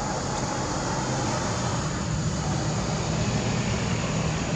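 Steady low rumbling background noise with a constant hiss above it and no distinct event.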